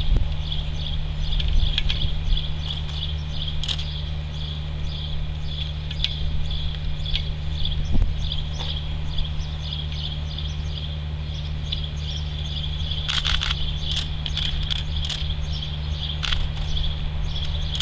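Insects chirping in a steady, rapid, even pulse over a low steady hum, with a few sharp clicks, most of them in the last third.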